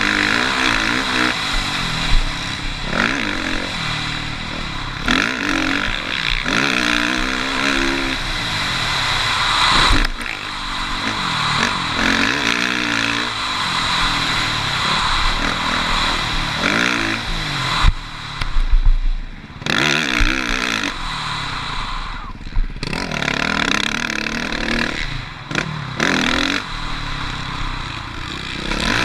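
Suzuki RM-Z450 motocross bike racing round a dirt track, its engine revving up and dropping back again and again as the throttle opens and closes, with wind rushing past and a few sharp knocks and clatter from the bike. The revs fall away twice near the end before picking up again.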